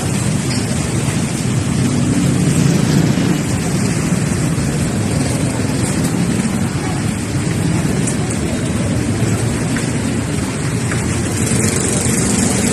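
Steady rumbling noise of a moving vehicle, with its energy mostly low and an even hiss above it.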